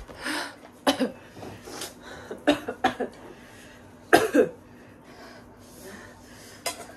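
Several short coughs spread over a few seconds, the loudest a double cough about four seconds in, with breathing between: coughing from the chili heat of very spicy noodles.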